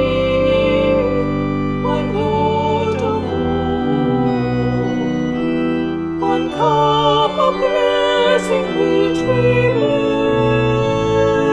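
Two-manual church organ playing a slow piece in held chords, the bass notes changing about once a second.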